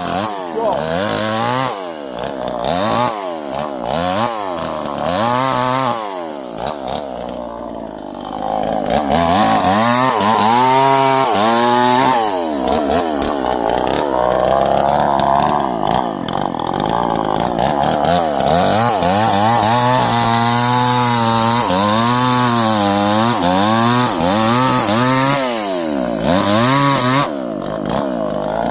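Two-stroke chainsaw revving up and down over and over as the throttle is opened and released, with longer stretches held at high revs while it cuts through wood.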